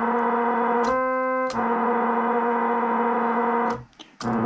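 ARP Solina String Ensemble sounding held notes, thinning out briefly about a second in, then cutting off just before four seconds and sounding again near the end. It is showing the fault in which notes on some keys, above all the B keys, drop out and break up, traced to the M087 master oscillator chip.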